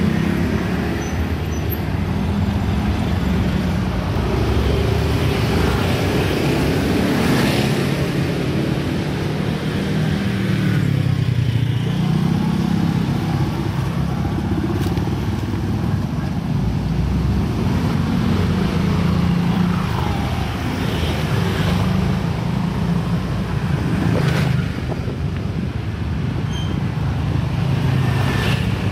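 Street traffic: small motorbike and scooter engines and cars running past close by, a steady engine hum whose pitch rises and falls as vehicles go by.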